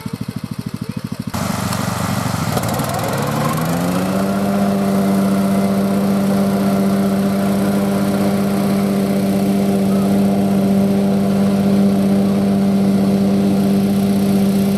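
BCS walk-behind tractor engine with its 38-inch bagging finish mower: the engine idles with an even chugging beat, then about a second in it is throttled up. Its pitch climbs over a couple of seconds and it settles into a steady run at full speed.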